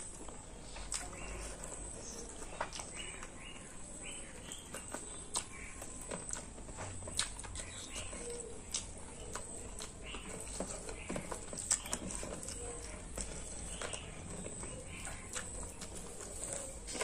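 Close-miked eating sounds: chewing and lip smacking, with irregular small clicks.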